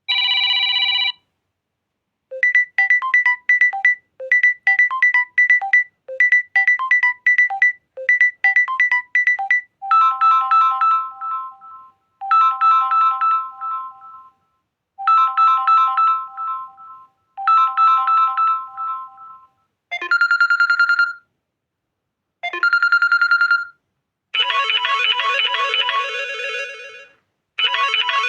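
Samsung Galaxy A06 stock ringtones and notification tones played one after another: a short chime, then a bright melody repeated five times, a second melody repeated four times, two brief single tones, and a fuller repeating ringtone melody starting near the end.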